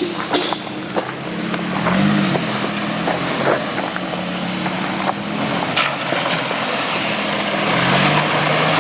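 A 4x4 truck's engine pulling through a creek crossing, with the revs rising briefly about two seconds in, and water sloshing and splashing around it that grows louder toward the end. A few sharp knocks come through along the way.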